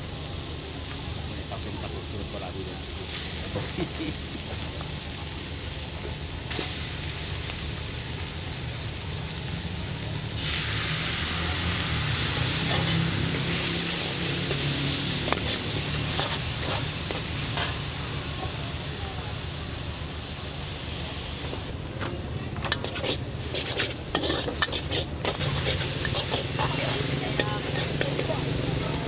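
Rice noodles sizzling in a wok as they are stir-fried with a metal ladle. The sizzle grows louder about ten seconds in. From about two-thirds through, the ladle scrapes and clanks against the wok in quick, repeated strokes.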